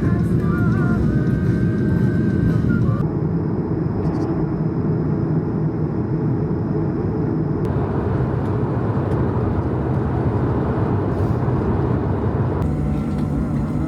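Airliner cabin noise inside an Airbus A220: a steady rumble of its geared turbofan engines and airflow. Its character changes abruptly about three seconds in, again near eight seconds and near the end.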